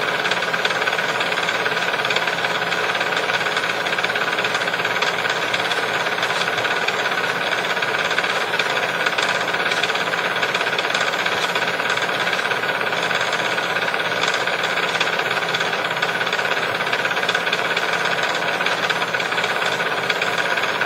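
Tower fan blowing steadily: an even rush of air with a faint steady tone in it.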